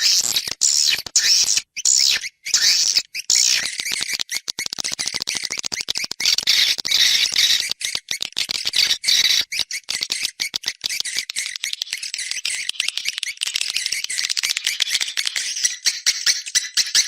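Swiftlet calls from an external swiftlet lure track: a dense, continuous twittering of very fast, high chirps and clicks. The track is meant to draw swiftlets to a nest house.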